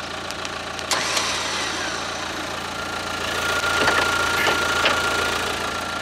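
Car engine idling, with the whine of an electric winch motor joining about three seconds in as the winch runs, and a few clicks.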